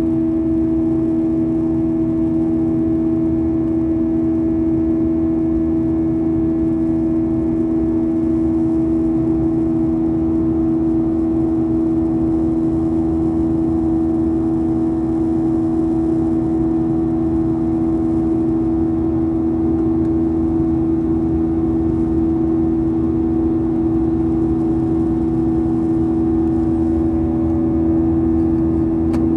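Cabin sound of a Boeing 737-900ER in flight, heard inside the cabin by the wing: its CFM56-7B turbofan engines running steadily, a constant drone with two held low tones over the rush of airflow.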